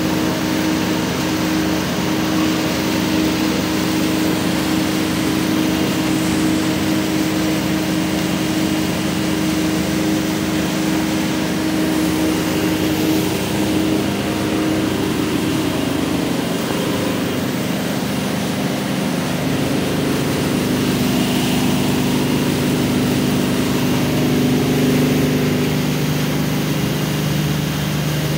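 Plastic recycling machinery, the plastic grinder and flake washing line, running steadily: a motor hum with several steady tones under a dense noise. The pitch of the hum shifts a little about halfway through and again near the end.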